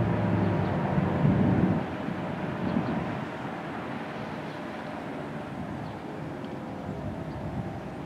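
ACA Allertor 125 rotating tornado siren sounding its steady tone as the horn turns. The sound is loud for the first two seconds, then drops off and carries on fainter as the horn swings away.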